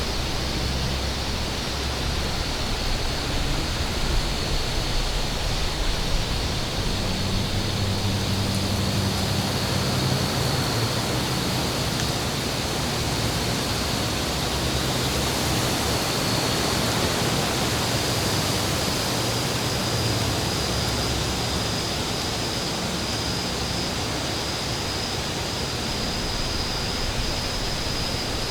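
Steady wind noise, an even rushing hiss with a low rumble that swells and eases, and a faint thin high tone running under it.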